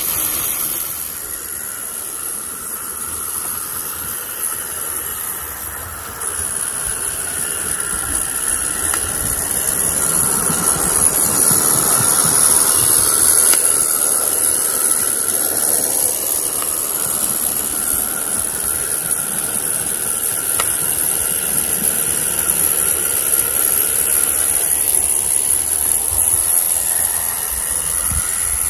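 Regner Paul live-steam tram locomotive in steam, its gas burner and steam giving a steady hiss that gets louder about six seconds in. The burner has a newly milled secondary air hole in its collar, which the owner found made it quieter and its flame more regular.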